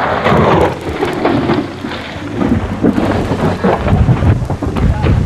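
Rally car crashing off a gravel road into roadside bushes: a loud rumbling noise with many sharp crackles throughout.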